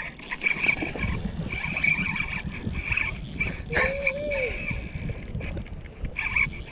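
Spinning reel being cranked, its gears whirring in short runs over wind and handling noise, with a short squeak about four seconds in.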